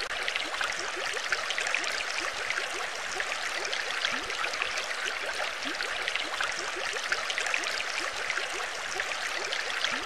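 Steady bubbling, gurgling water: many small bubbles popping.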